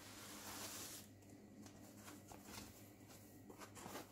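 Faint rustling and rubbing of foam packaging as it is handled and unwrapped: a longer hissy rub in the first second, then light scratches and scrapes.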